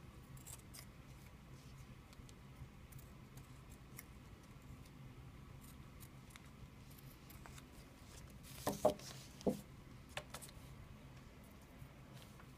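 Scissors snipping through duct-tape arrow fletchings: faint scattered snips and clicks, with a few louder clicks about nine to ten seconds in.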